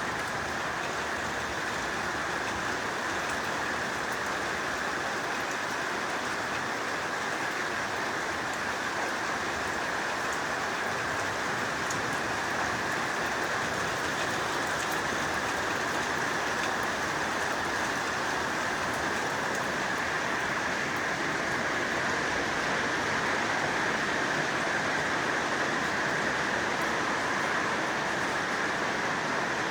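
Heavy rain falling steadily, an even hiss that doesn't let up.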